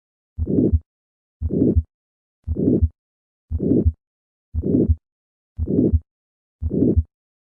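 Heart sounds of aortic stenosis at the second right intercostal space: a systolic ejection murmur with a late peak, filling each beat between the first and second heart sounds. Seven regular beats, about one a second, with silence between them in diastole.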